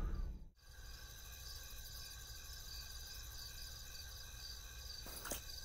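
Faint night ambience of crickets, a high chirping pulse repeating about two or three times a second over a steady insect trill.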